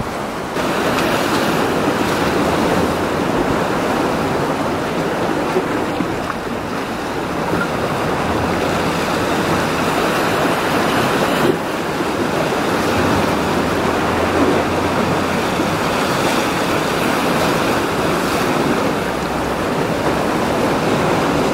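Rough sea surf washing and breaking steadily against the rocks of a breakwater.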